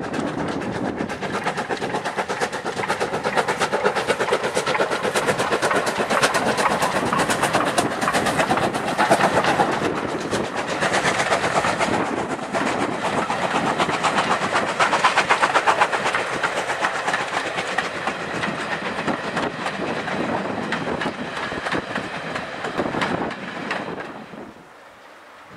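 GWR 42xx-class 2-8-0 tank engine No. 4277 'Hercules' passing with its train, then the coaches rolling by close at hand with a rapid, continuous clicking of wheels over the rail joints. The sound drops away abruptly near the end.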